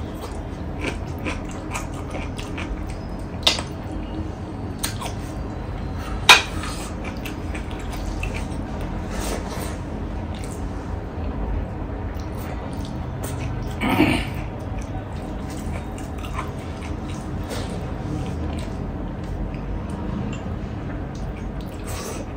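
Mukbang eating sounds: a person chewing a meal of pork leg pickle and rice, with scattered clicks and clinks of dishes, the sharpest about six seconds in and a short louder mouth sound about fourteen seconds in. A steady low hum runs underneath.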